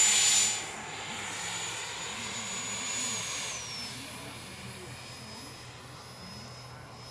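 Jet turbine of a radio-controlled Harrier model in flight: a high, steady turbine whine that drops sharply in loudness about half a second in, then falls in pitch at about three and a half seconds as the throttle comes back.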